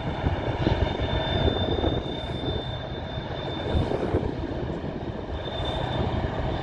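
Norfolk Southern diesel locomotives running as a train rolls down the grade, a steady low rumble with a thin high whine held over it.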